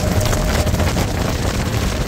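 Jet boat running fast up a river: loud, steady engine and water-jet noise, with wind buffeting the microphone.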